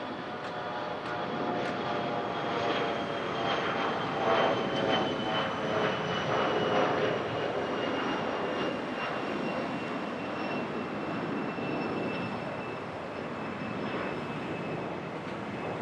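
Bombardier Challenger 650 business jet passing by on its twin turbofans: a jet rumble that swells about four to seven seconds in, with a high whine that slowly falls in pitch as it goes past.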